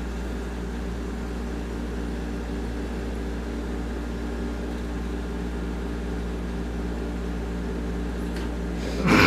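Steady low electrical or mechanical hum, even and unchanging, like an appliance or fan motor running. A sudden louder noise cuts in near the end.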